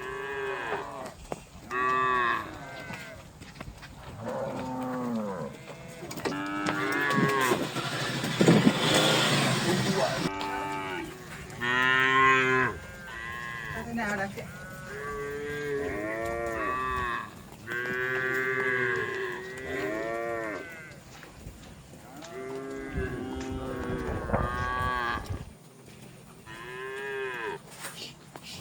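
Cattle mooing over and over, many separate calls each rising then falling in pitch and lasting about a second. A rushing noise rises under the calls about eight seconds in and stops suddenly about two seconds later.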